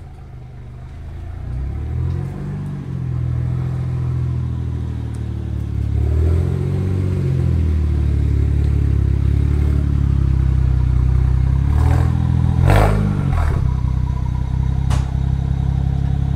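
BMW 335i's twin-turbo inline-six with catless downpipes running at low speed, getting louder as the car comes close. The revs rise and fall briefly three times, with some crackle around the last one.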